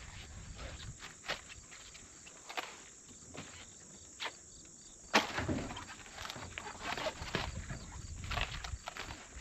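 Irregular crunches and snaps of cabbage heads being cut and handled, with leaves rustling between them; the strongest crunch comes about five seconds in, followed by a spell of denser rustling.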